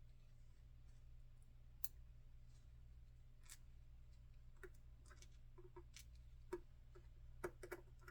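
Faint, scattered small metal clicks and ticks from the tiny parts of a disassembled EVVA ICS high-security lock being handled as its pins and springs are taken out, a dozen or so, the sharpest two near the end, over a low steady hum.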